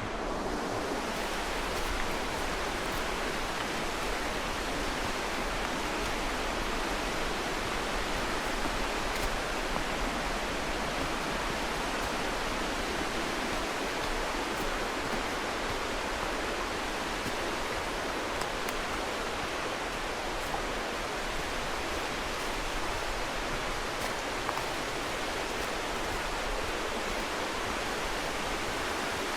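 Mountain creek rushing steadily over rocks, a loud, even wash of water.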